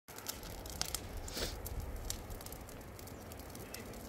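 Outdoor ambience: a steady low rumble with scattered light clicks and crackles, one a little louder about a second and a half in.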